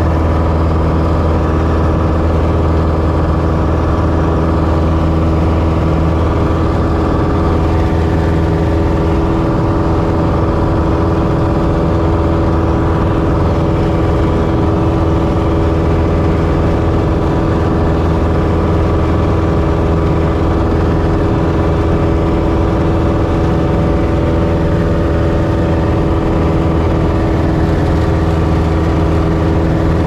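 Steady drone of a light aircraft's engine and propeller in level flight, heard inside the cabin with the rush of air over the airframe.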